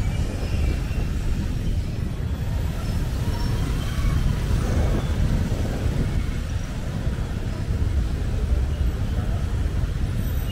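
Steady city road traffic noise, mostly a low rumble of vehicles.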